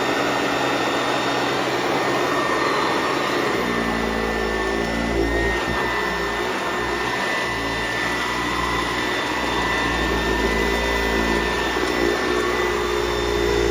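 PowrFlite PF70 commercial vacuum running steadily, its motor giving a loud, even rush of air. About three and a half seconds in, a deep hum and a set of wavering tones join in and stay to the end. The machine is running on a bad drive belt.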